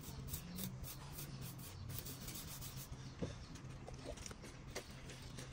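A trowel edge scratching and scraping in a run of quick strokes as lines are scored into wet white cement slurry over a sand-cement mortar bed. A faint steady low hum runs underneath.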